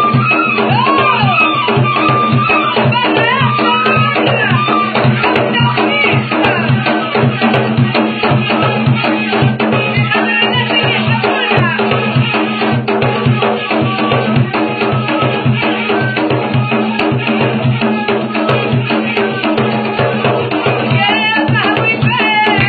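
Folk music: a gasba reed flute melody over a steady low drone and a fast, even hand-drum beat.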